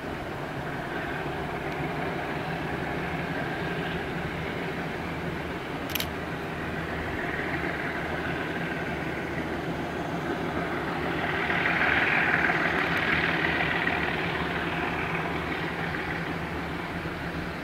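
MLW diesel locomotive's engine running as it hauls a freight train toward the viewpoint, a steady drone that swells to its loudest about twelve seconds in and then eases a little. A single sharp click about six seconds in.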